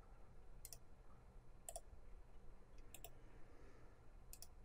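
Faint clicks of a computer mouse's left button: two single clicks about a second apart, then two quick double clicks.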